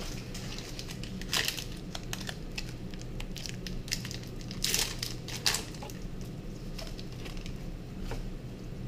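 Foil Pokémon booster pack wrappers crinkling and being torn open, in irregular bursts, with louder crackles about a second and a half in and again around five seconds in.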